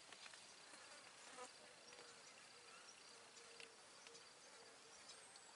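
Near silence: quiet field ambience with a faint insect buzz. A soft, short low note repeats about twice a second from about a second and a half in.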